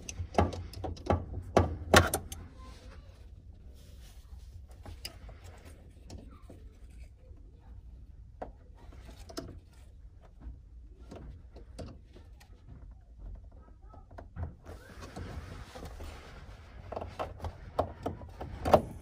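A screwdriver and hand clicking, tapping and scraping on the metal fittings of a 1995 Honda Civic's fuel pump assembly while a small hose is worked off it. Sharp knocks cluster in the first two seconds and again near the end, with quieter scraping and handling noise in between.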